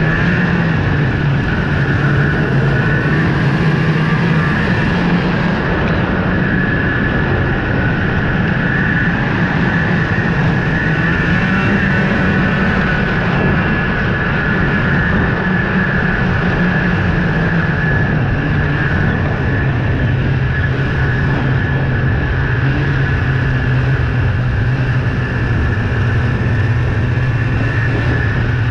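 Ski-Doo snowmobile running steadily at trail speed: engine and track noise with a steady high whine over it. The engine note rises slightly about twelve seconds in and settles a little lower from about sixteen seconds.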